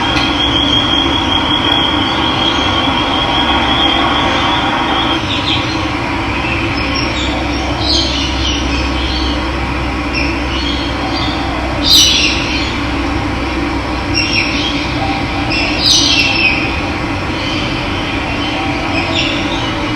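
Steady, loud rush of running water, with short bird calls breaking in several times, the loudest about twelve and sixteen seconds in. A high, even trill runs over the water for the first five seconds.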